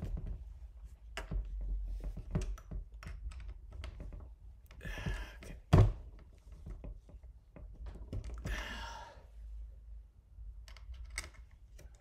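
Irregular small clicks, taps and knocks of hands and a tool working at the metal group head and shower screen of a De'Longhi Dedica espresso machine, with one sharp loud knock about six seconds in. Two brief hiss-like sounds come just before and a few seconds after the loud knock.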